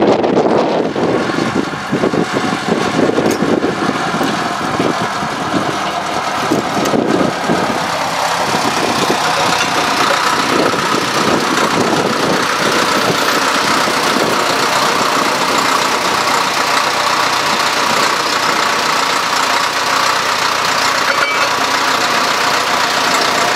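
Diesel engine of narrow-gauge locomotive 2921 001 running steadily close by.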